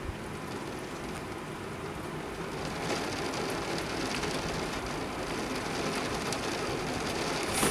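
Heavy rain falling steadily, with individual drops ticking sharply on a nearby surface. The rain grows heavier about three seconds in.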